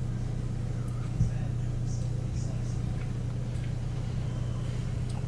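A steady low hum, with one short soft knock about a second in.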